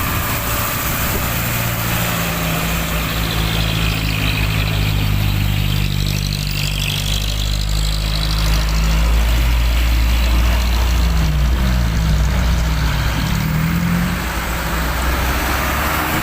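Heavy vehicle engine running steadily, with its pitch dipping and then rising again about two-thirds of the way through as the revs change.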